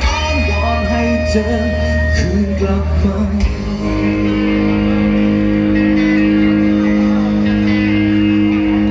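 Live rock band playing the close of a song: moving melodic lines for about three seconds, then the band holds one long sustained chord.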